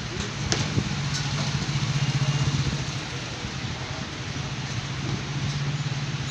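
A motor running with a steady, low, pulsing hum, which starts just after a sharp click and is loudest around two seconds in.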